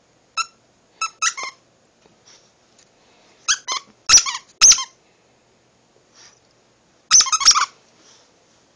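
Squeaky plush spider dog toy being squeezed in short bursts of high squeaks, a few at a time. The loudest squeaks come about four seconds in, with a quick flurry near the end.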